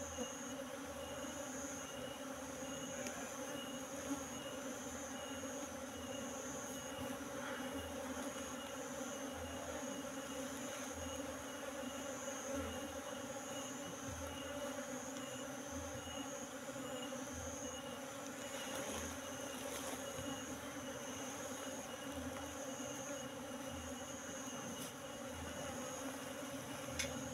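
Steady humming buzz of a large colony of Asian honeybees (Apis cerana), many bees in flight around the hive box.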